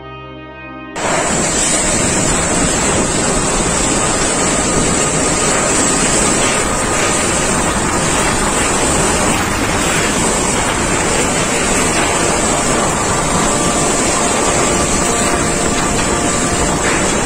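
A second of brass music, then super typhoon winds rushing past a phone microphone, a dense, steady, loud blast of wind and driving rain buffeting the mic without letup.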